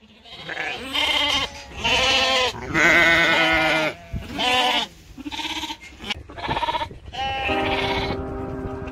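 A pen of Mayo Blackface ewes and their lambs bleating, call after call, as the lambs are parted from their mothers. Music comes in near the end.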